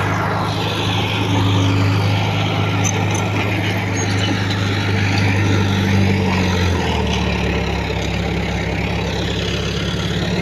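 Heavy diesel earthmoving machinery running steadily, with the engine note dropping to a lower pitch about seven seconds in.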